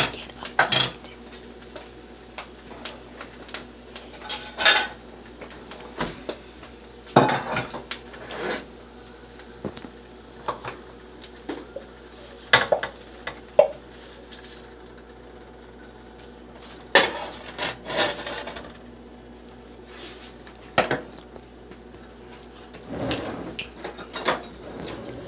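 Metal cooking utensils clinking and knocking against pans and dishes during egg cooking: scattered sharp clinks every second or few, with longer runs of clatter about two thirds of the way through and near the end.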